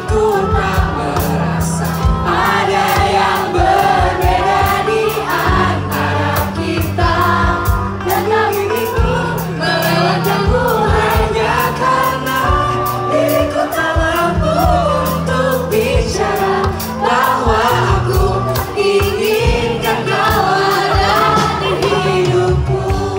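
Music: a group of voices singing a melody over held bass notes and a light beat.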